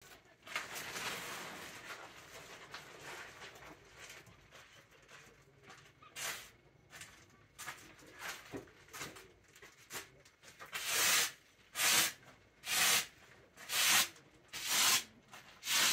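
Blue plastic tarp rustling and crinkling as it is shaken out and spread, then a broom sweeping across the tarp in regular swishing strokes, about one a second, in the last few seconds.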